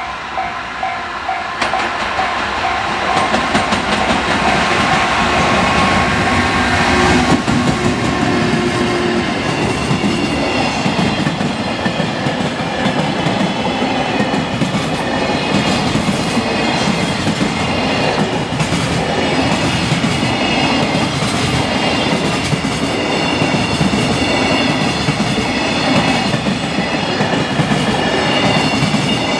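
A long JR freight train approaches and passes close by at speed, growing louder over the first few seconds, then a steady rumble of container flatcars with the rhythmic clatter of wheels over rail joints. A level-crossing bell rings throughout.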